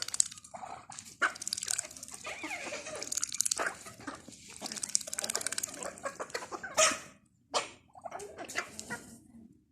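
Ducks splashing and dabbling in shallow water, in a run of irregular wet, rapid-clicking bursts with a few sharper splashes.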